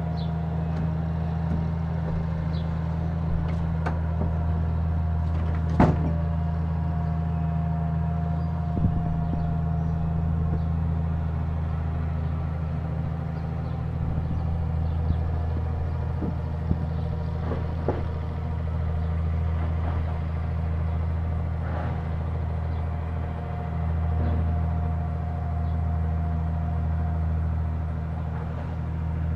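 Diesel excavator engine running steadily through a house demolition, with a few sharp knocks and cracks, the loudest about six seconds in.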